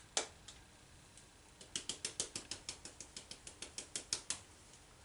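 A small hand-worked mechanism clicking. There is one click at the start, then from about a second and a half in a fast, even run of sharp ratchet-like clicks, about eight a second, for nearly three seconds.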